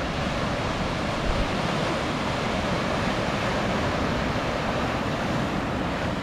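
Steady rush of breaking surf in an artificial surf wave pool.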